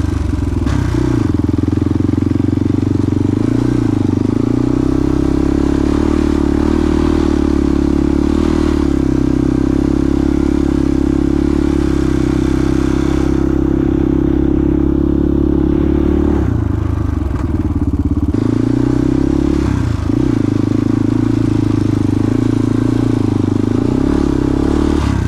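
ATV engine running hard as the quad is ridden through snow, a loud steady engine note. Past the middle the note drops for about two seconds as the throttle eases, then comes back up, with another short dip soon after.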